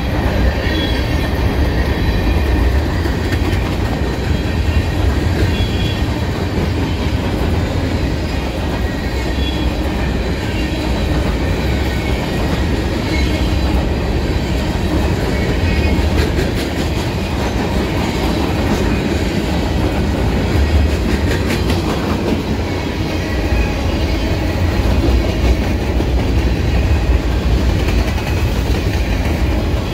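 Empty covered hopper cars of a freight train rolling past close by, their wheels running over the rails with a steady low rumble and clatter.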